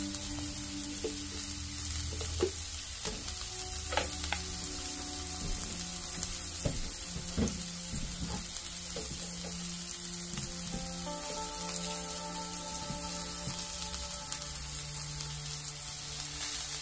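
Smash burger patties sizzling on a hot cast iron skillet, a steady frying hiss broken by a few sharp taps.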